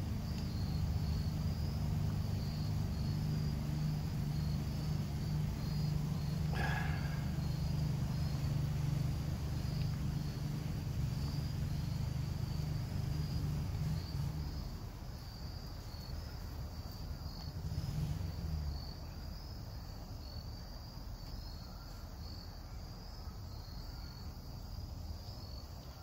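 Insects chirping in a steady, pulsing rhythm, with a low steady hum underneath that drops away about halfway through.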